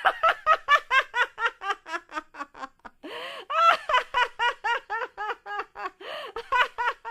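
High-pitched laughing sound effect: a long, rapid run of 'ha' pulses, about five a second, broken twice by a loud in-breath.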